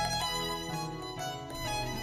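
Instrumental background music: a melody moving from note to note over steady low bass notes.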